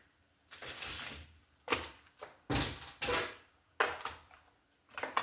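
Items being handled in a plastic DeWalt T-Stak toolbox: a string of about six short rustles and clatters.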